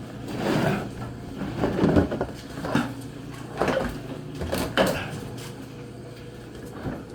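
Metal tool chest drawers and lids being opened and shut: about five clunks and rattles in the first five seconds.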